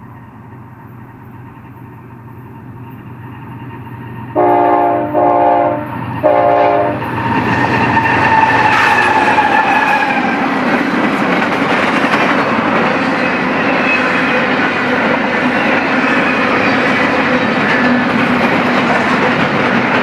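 An approaching BNSF diesel freight train sounds its air horn in three short blasts about four seconds in, then the locomotive passes with a falling tone. A long string of empty intermodal well cars follows, rolling by with steady, loud wheel-on-rail noise.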